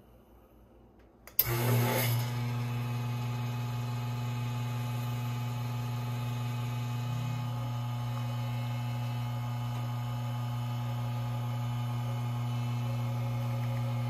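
Rocket Giotto Evoluzione R espresso machine's rotary pump starting with a click about a second and a half in, then running with a steady low hum as the shot is pulled.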